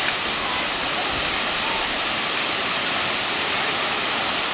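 Waterfall cascading down rock ledges into a pool: a steady, unbroken rush of falling water.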